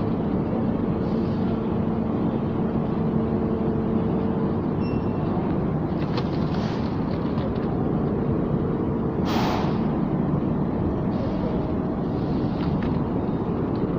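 A 12-ton air conditioner running: a steady fan rush with a low hum that drops out about four and a half seconds in and comes back later. A short hiss comes about nine seconds in.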